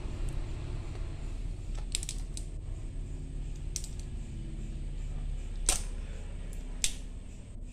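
Plastic-and-foil blister strip of tablets handled in the fingers: a few short, sharp crinkling clicks, the loudest about three-quarters of the way through, over a low steady hum.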